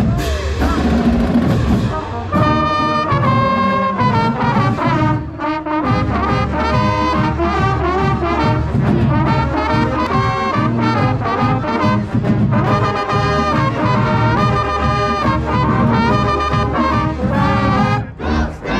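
Marching band's brass section playing a tune loudly, heard from inside the band's ranks, with a short break in the playing near the end.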